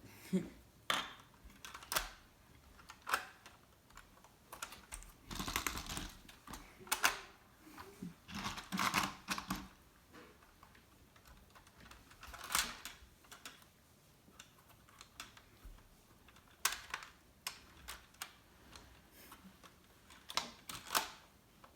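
Irregular plastic clicks and light knocks from a LEGO model car being handled and its parts worked, with a few short clattering clusters in the middle.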